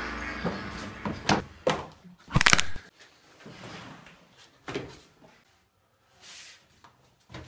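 Scattered thuds and knocks from a struggle on a staircase, with the loudest cluster about two and a half seconds in. They thin out to a few softer knocks and a short hiss near the end.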